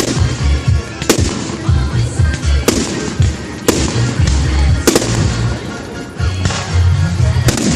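Fireworks going off: about six sharp shell bursts, one every second or so with a longer gap before the last, each followed by crackle, over loud music with a heavy bass beat.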